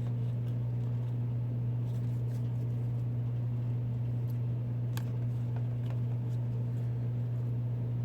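Steady low electrical-type hum, with a few faint clicks and taps of trading cards being handled and laid out, the clearest about five seconds in.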